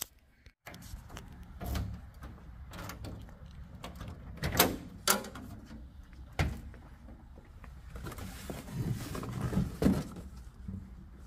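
Handling noises as a car door stands open and a cardboard box of pistons is picked up and moved: a few sharp knocks and clunks, loudest around the middle, over a low steady rumble.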